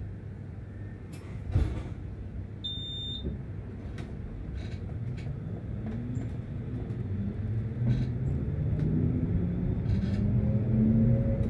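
Tram pulling away: a low rumble with scattered knocks from the wheels on the track, and from about halfway the traction motors' whine rising steadily in pitch as it gets louder. A short high beep sounds about three seconds in.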